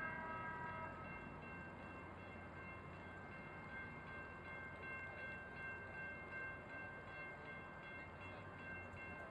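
A train horn sounds and cuts off within the first second. After it, a steady pulsing high ringing carries on over low street rumble.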